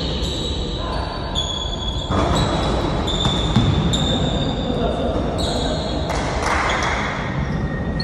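Basketball bouncing during a pickup game on a court, with voices in the background and high-pitched tones that come and go.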